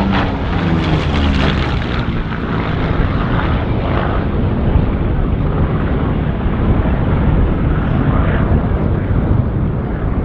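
Supermarine Spitfire's Rolls-Royce Merlin V12 engine running in flight, its pitch falling over the first couple of seconds, then a steady loud drone.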